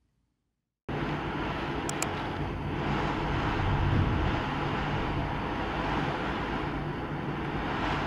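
Typhoon-strength storm wind and rain outside a window: a steady rushing noise with a deep rumble that cuts in suddenly about a second in and swells around the middle. Two brief high tinkles come about two seconds in.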